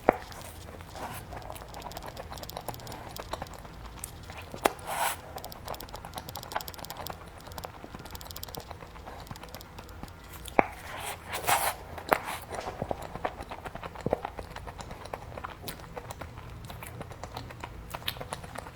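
A person eating close to the microphone: chewing and biting, with scattered sharp clicks and short crunchy or smacking bursts, the loudest twice, about five and eleven seconds in.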